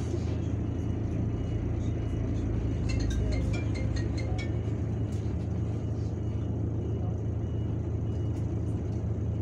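Irisbus Citelis 12M city bus engine idling with a steady low hum, heard inside the passenger cabin while the bus stands still.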